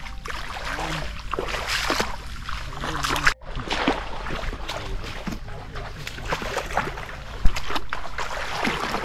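Water sloshing and splashing around someone wading, with a sudden brief break about a third of the way in and a single sharp knock near the end.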